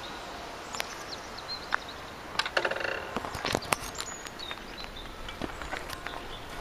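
Outdoor ambience: a steady hiss, with a few short high chirps from small birds and a cluster of sharp clicks about two and a half to four seconds in.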